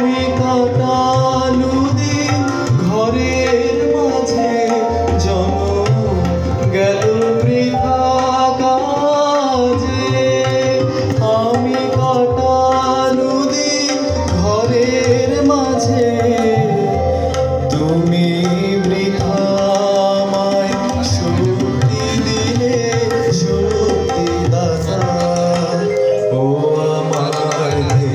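Live song with tabla accompaniment: a singer's melody carried over steady tabla strokes.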